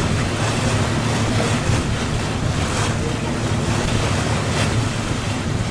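Passenger river boat underway: the engine's steady low hum under water rushing past the hull, with wind buffeting the microphone.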